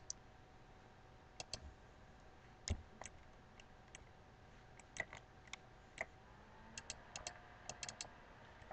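Computer mouse clicks, scattered singly and in quick pairs, with a quicker run of several clicks near the end, over a faint room hiss.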